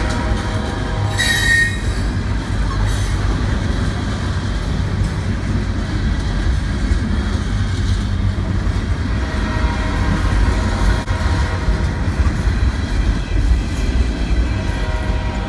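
Loaded refrigerated boxcars of a freight train rolling past at close range, a steady rumble of steel wheels on the rails. A short wheel squeal comes about a second in.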